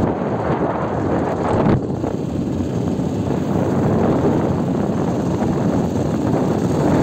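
Steady rush of wind buffeting the microphone on a moving motorcycle, mixed with the bike running.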